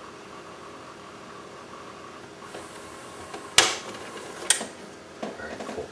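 Sony LaserDisc player's disc drawer mechanism, opened up for repair: a steady low hum, then two sharp plastic clacks about a second apart as the tray moves, followed by brief rattling near the end.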